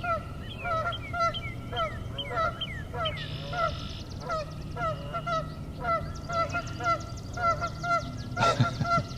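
Geese honking over and over, about two honks a second, loud enough to drown out other birdsong. A high, fast trill from another bird comes and goes behind them, and there is one sharp knock near the end.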